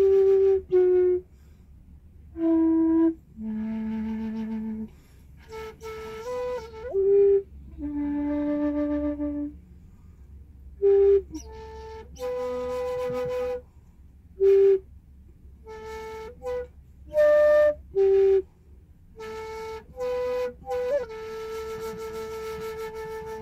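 A long wooden end-blown flute playing a slow melody of single held notes with short gaps between them, a few notes sliding up into pitch, inside a car.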